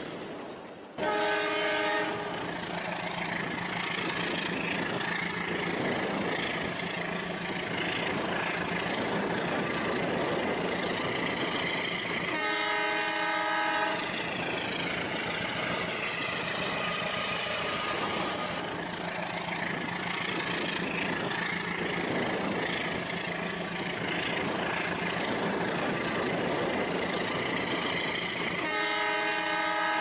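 Battery-powered toy train running through shallow water, with a steady motor hum and the rush of water churned up by the locomotive. Its electronic horn sounds three times, about a second in, near the middle and at the very end, each blast lasting a second or so.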